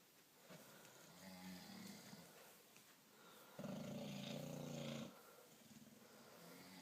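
Snoring: soft, rattling snores, with one louder, longer snore lasting about a second and a half, a little past halfway.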